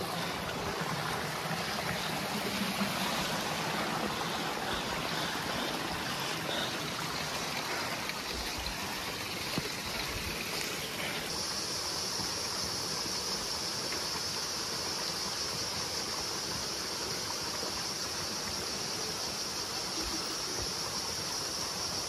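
Small mountain stream running and trickling between boulders, a steady rushing wash of water. About halfway through, a steady high-pitched insect drone joins in.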